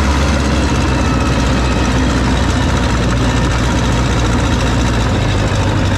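Case 450 crawler dozer's engine running at a steady speed, heard loud and close from the operator's seat.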